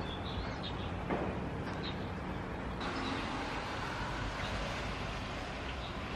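Steady street ambience of traffic on a rain-wet road: a continuous hiss with a low rumble beneath it.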